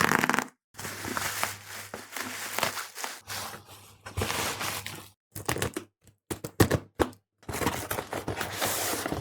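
Shipping packaging being torn open and unwrapped: crinkling plastic and paper rustling with ripping and sharp cracks, stopping and starting abruptly several times.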